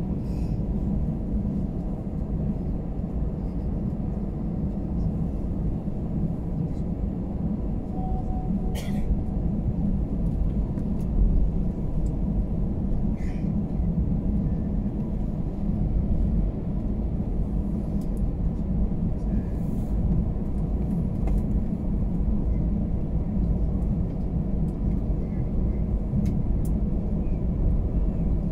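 Airbus A320 cabin noise while taxiing: a steady low rumble of the jet engines and the rolling airliner, with a few faint clicks.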